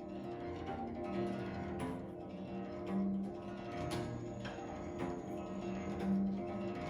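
Song-dynasty guqin 'Sui Zhu' played solo: a slow run of separate plucked notes that ring on, low and sustained.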